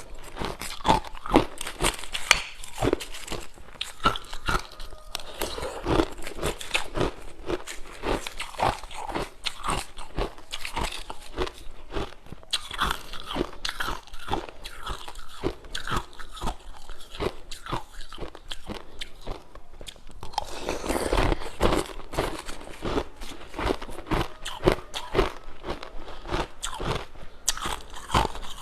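Dense, irregular crunching close to the microphone, a rapid run of crisp cracks and clicks with a louder stretch about two-thirds of the way through.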